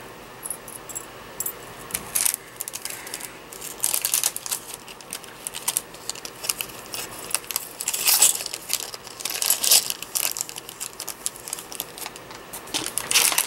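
Small metal open bezel charms clinking and jingling against each other as they are handled and gathered up: a run of light, irregular clicks.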